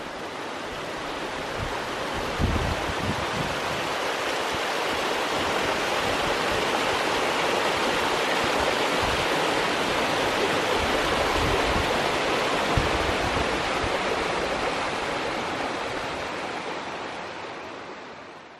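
Mountain creek rushing over granite slabs in small cascades: a steady water rush that fades in at the start and fades out near the end.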